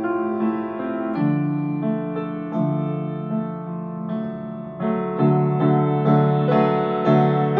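Solo grand piano played in full chords with sustained notes, growing louder about five seconds in.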